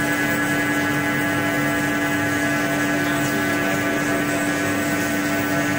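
CNC hot-wire foam contour cutting machine running, a steady electrical hum with one strong low tone and fainter higher tones above it.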